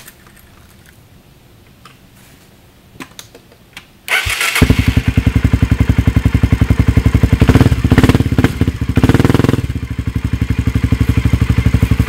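Suzuki DR250SE's single-cylinder four-stroke engine, breathing through an FMF aftermarket exhaust, cranks briefly on the electric starter about four seconds in and catches almost at once. It then runs at idle with a steady, fast pulse, is revved up briefly around the middle, and settles back. The engine is still cold. A few faint clicks come before the start.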